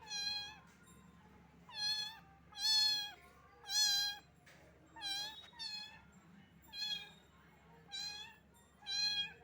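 A very young kitten meowing over and over, about nine high-pitched meows roughly a second apart.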